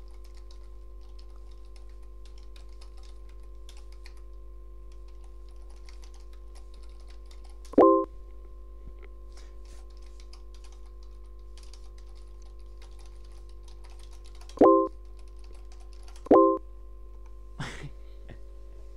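Typing on a computer keyboard, light key clicks over a steady electrical hum. Three short, loud electronic tones sound about eight seconds in and twice more near the end.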